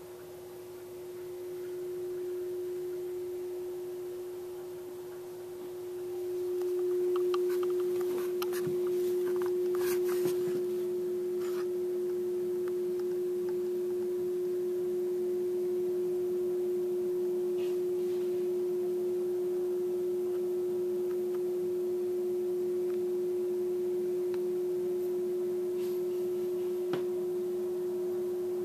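Steady single-pitched electrical hum from the reef aquarium's running equipment, with a few light clicks about eight to eleven seconds in.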